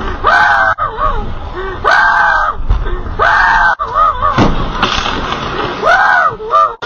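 A person yelling in a series of short, high-pitched cries that rise and fall, several times over. Between the cries come a couple of low thuds and a sharp knock about four seconds in, as the car strikes things.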